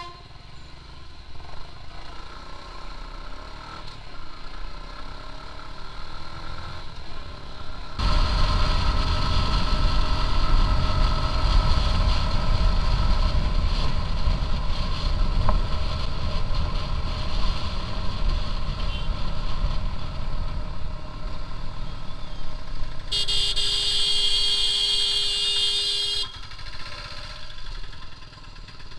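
Suzuki Gixxer SF single-cylinder motorcycle riding through city traffic: engine and wind noise, suddenly louder about eight seconds in. Near the end a vehicle horn sounds one steady blast for about three seconds.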